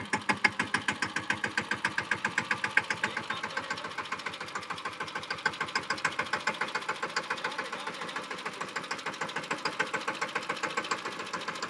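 Small tractor's diesel engine running at low revs with a steady, even chugging as it pulls off towing a hitched thresher.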